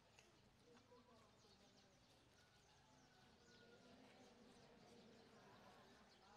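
Near silence: faint chirping of birds, many short high chirps, over a distant murmur of crowd voices.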